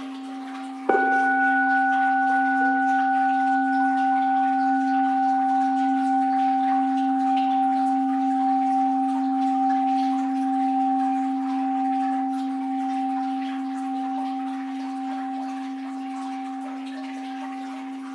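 Orin (Japanese Buddhist bowl bell) struck once about a second in, then ringing on with a low hum and two higher overtones that fade slowly, gently wavering as they die away.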